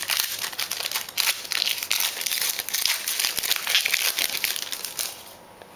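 A foil trading-card pack wrapper being torn open and crinkled by hand, a dense crackling with many small clicks that stops about five seconds in.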